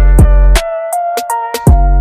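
Hip-hop style backing music with a deep booming bass drum, sharp hi-hat clicks and a steady synth melody.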